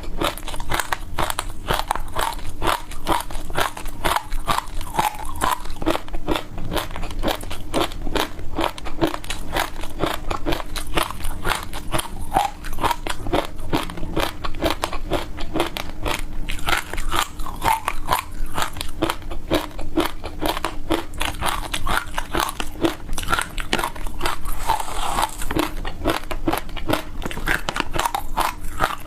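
Frozen ice being bitten and chewed close to the microphone: continuous dense crunching and crackling, bite after bite.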